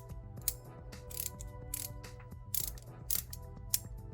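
Ratcheting box-end wrench (72-tooth) being swung back and forth, its pawl clicking in short bursts several times.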